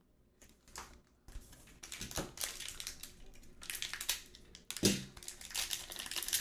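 Foil trading-card pack wrapper crinkling and tearing as it is opened by hand, starting about a second in and going on in irregular rustling spells, with a brief louder burst near the five-second mark.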